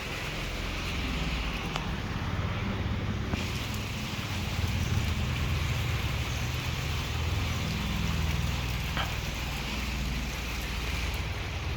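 Steady rain falling, an even hiss with a few faint drop ticks, over a low, uneven rumble.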